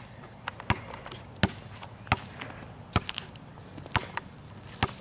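A basketball dribbled on a paved driveway, bouncing steadily about seven times, a little under a second apart.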